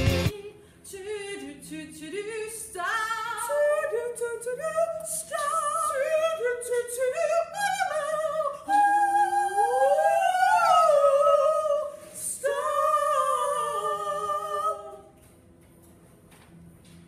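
Two women singing without accompaniment in an exaggerated, mock-operatic choir style, their two voices moving in steps with a long rising swoop in the middle. The singing stops about two seconds before the end.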